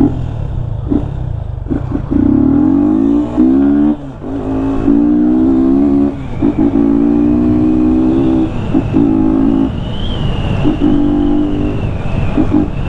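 Yamaha Fazer 250's single-cylinder engine running without its air filter, revved hard under acceleration. Its pitch climbs in each gear and drops at each of several gear changes and throttle lifts.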